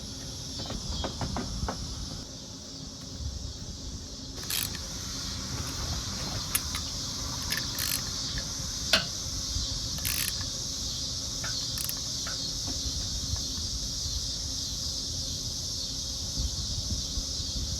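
Steady high chirring of crickets, with scattered short clicks and taps, the sharpest about 4½, 9 and 10 seconds in.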